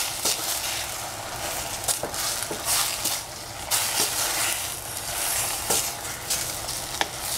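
Bok choy and mushrooms sizzling in a stainless steel saucepan while a wooden spatula stirs them. The spatula scrapes and knocks against the pan at irregular intervals over a steady frying hiss.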